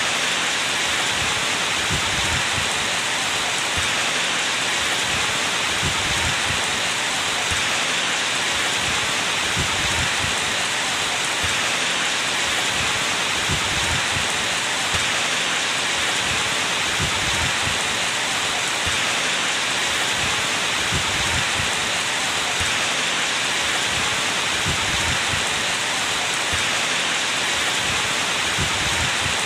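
Steady rain falling on a surface: a dense, even hiss with irregular low drop thuds scattered through it.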